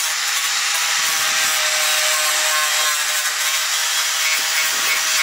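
Corded electric grinder with a small abrasive disc running steadily, a continuous hissing whine over a faint steady hum.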